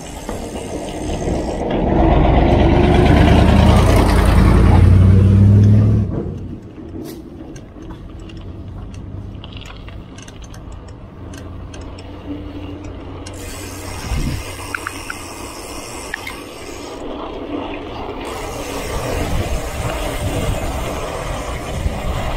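Bicycle rolling on a concrete road with wind rushing on the microphone. From about two seconds in, a loud low vehicle engine rumble builds and drops away sharply around six seconds in. Near the end the rumble grows again as another vehicle approaches.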